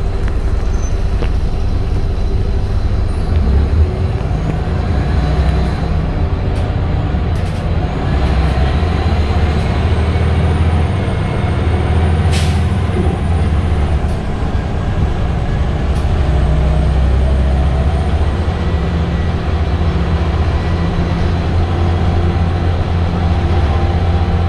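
Scania L94UB bus's engine and drivetrain running steadily inside the passenger cabin as the bus drives along, the engine note rising and falling as it changes speed. One sharp click about halfway through.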